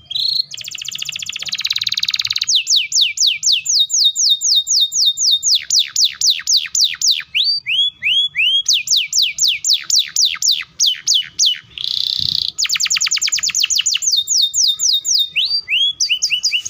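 Domestic canary singing a long, continuous rolled song. It opens with a dense buzzy trill, then runs of repeated down-slurred whistled notes at about five a second, with a short buzz and a faster trill near the end. The song stops abruptly.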